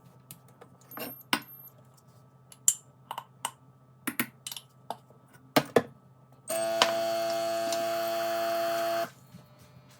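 A run of light clicks and taps from small objects being handled, then a small electric motor hums steadily for about two and a half seconds and cuts off.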